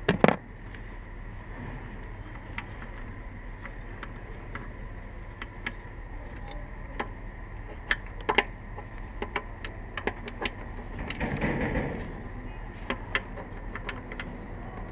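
Hand tools and engine parts being handled: scattered light clicks and knocks, a louder clatter about a quarter second in, and a short scraping rustle around eleven seconds.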